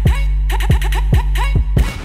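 Electronic background music: a steady deep bass note under a driving kick-drum beat, with crisp hi-hat ticks between the beats.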